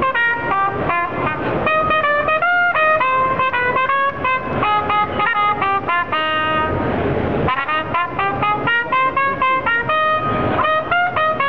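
Toyota Partner Robot playing a trumpet melody in quick short notes, holding one note a little past halfway before the run of notes resumes.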